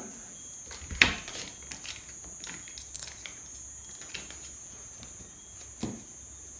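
Crickets chirring steadily and high in the background, broken by a few sharp clicks: a loud one about a second in and another near the end.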